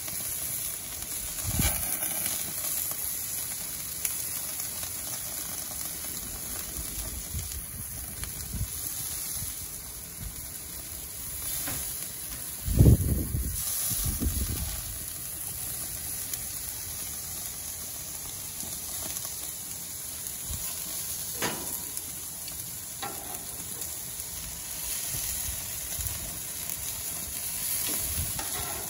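Meat and chicken skewers sizzling steadily on a Char-Broil gas grill, with a hiss in the highs. A few dull bumps break in, the loudest about 13 seconds in, as a skewer is handled.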